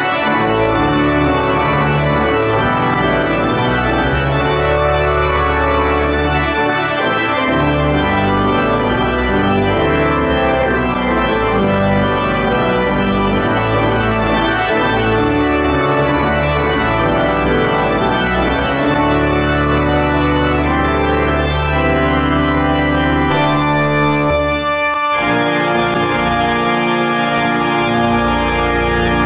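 Church organ playing the closing voluntary in slow, held chords that change every second or two. About 25 seconds in the sound breaks off abruptly and a held organ chord carries on.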